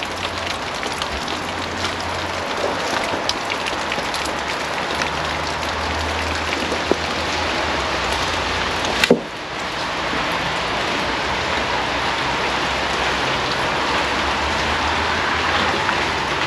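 Steady rain pattering down, with scattered drop ticks over a low rumble. A single sharp click about nine seconds in.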